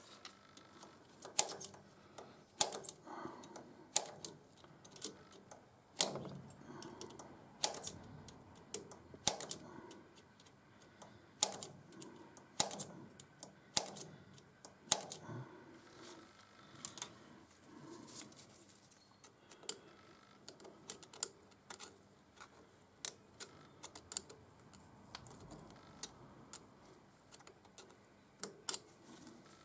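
Sharp, irregular metallic clicks of a pointed steel tool striking and prying at fragments of a broken stud jammed in the bore of a hardened thread chaser nut. The clicks come roughly every second or so at first, then more unevenly. The stud remains are loose and breaking up.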